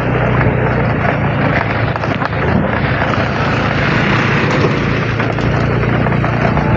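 A vehicle engine runs with a steady low drone under loud rushing wind noise.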